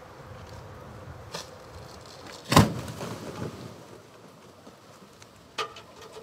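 A sperm whale carcass bursts open as it is cut: one sudden, loud blast of built-up putrefaction gas about two and a half seconds in, followed by a rush of about a second as the guts spill out. A smaller sharp crack comes near the end.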